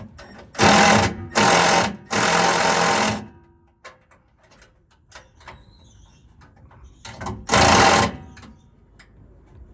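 Power tool run in short bursts, three close together in the first three seconds and two more near the end, the longest about a second, with faint clicks and handling sounds between them.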